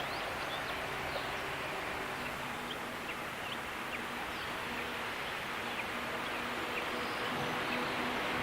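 Steady countryside hiss with many short, high bird chirps scattered through it and a faint low hum underneath.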